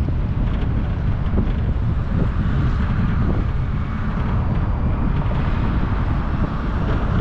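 A car driving along a road: a steady low rumble of engine and tyres, with wind buffeting the microphone.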